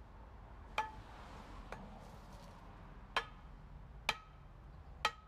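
Homemade pry bar (an axe head welded to box section) hammering a post into the ground: sharp clanks about once a second, each with a short ringing tone, four loud strikes and one lighter knock.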